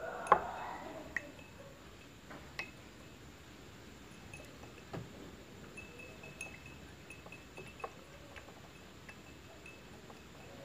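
A stirring rod clinking against the side of a glass beaker as a liquid is stirred: scattered light glassy clinks, the loudest just after the start, with a faint high ringing in the middle.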